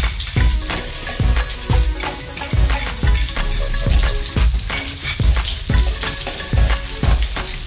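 Minced garlic and sliced shallots sizzling in hot oil in a steel wok, stirred with a metal ladle. A regular low beat runs underneath, about twice a second.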